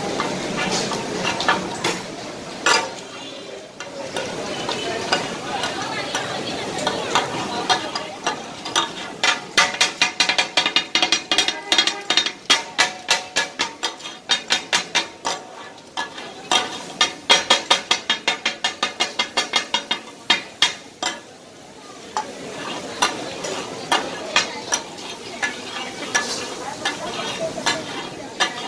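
Two metal kata-kat blades striking and scraping a large flat griddle as offal and butter are chopped, over the sizzle of frying fat. Scattered clacks and scraping give way twice to fast rhythmic runs of ringing metallic clacks, about four a second: the tak-a-tak chopping that gives the dish its name.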